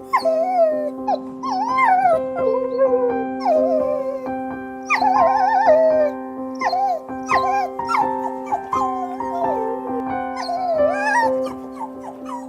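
A dog whimpering and yipping in a run of short high calls that bend up and down in pitch, over background music with steady held notes.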